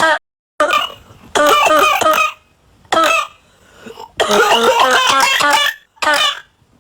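A run of voiced coughing sound effects: about six separate coughs with short silences between them, two of them drawn out over a second or more.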